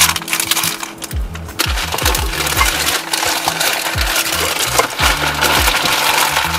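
Background music with deep bass notes and a kick-drum beat that drops in pitch, over a busy crackle of small clicks.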